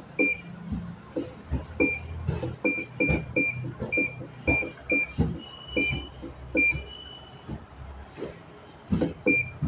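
A machine control panel's keypad beeping: about a dozen short, high electronic beeps at irregular intervals, each with a click like a key press. A steady low machine hum runs underneath.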